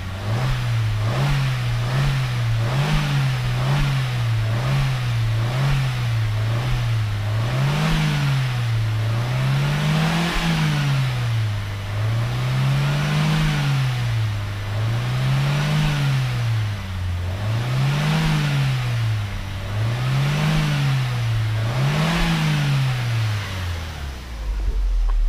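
Vauxhall Astra 1.4 petrol engine, warm after a timing chain replacement, being revved repeatedly in neutral. It starts with a run of quick short blips, then moves to slower, longer revs about every two and a half seconds, and drops back near the end.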